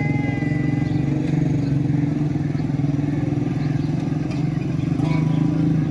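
A steady low engine drone, with a brief falling tone just at the start.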